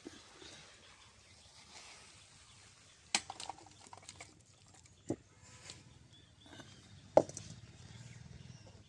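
A few sharp clinks of a metal utensil against a cooking pot, about two seconds apart, over a faint steady background.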